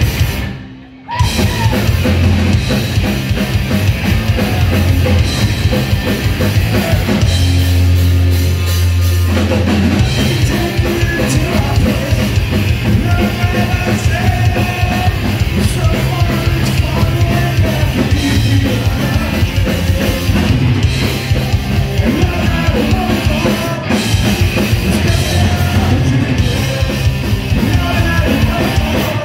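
Live punk rock band playing loud: distorted electric guitars, bass and drum kit, with vocals. The sound drops out briefly about a second in, then the full band comes back in.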